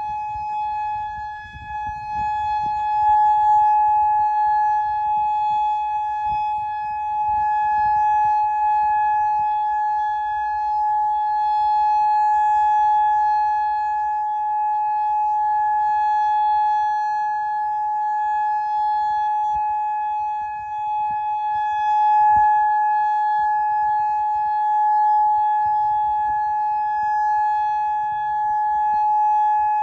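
Federal Signal Modulator electronic outdoor warning siren sounding a steady, single-pitch alert tone during a siren test, with a low rumble underneath.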